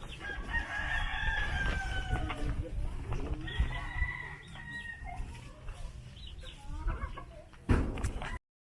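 A rooster crowing twice, each a long, slightly falling call, over a low rumble. A loud bump comes near the end, just before the sound cuts off.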